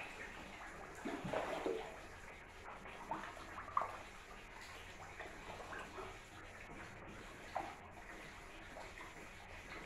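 Small pond fountain jet splashing steadily into the water, with a few short, louder sounds: about a second in, near four seconds and again about three-quarters of the way through.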